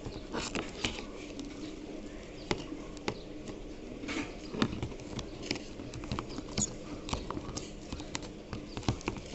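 PVC insulation tape being unrolled and wrapped around a wire joint by hand: irregular crackles and small clicks.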